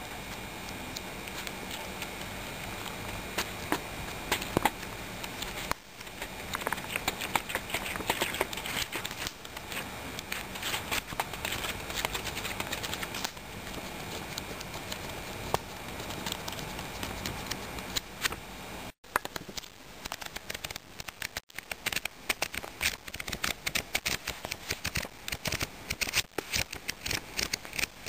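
Paper pages of a notebook and a paperback book being leafed through: rustling with many quick crackling flicks, which come faster and more thickly in the last several seconds, and two brief cut-outs past the middle.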